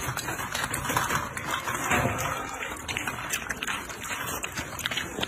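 Piglets licking and chewing an ice pop, a busy, irregular run of wet smacking and clicking mouth sounds.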